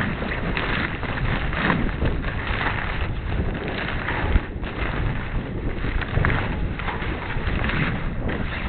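Wind buffeting the microphone aboard a sailboat under sail: a loud rushing rumble that swells and eases in uneven gusts.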